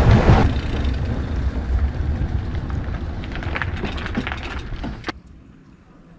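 Wind on an action camera's microphone and tyre noise from a mountain bike riding on asphalt, easing after the first half second and fading as the bike slows, with scattered light clicks. About five seconds in a sharp click is followed by faint outdoor quiet.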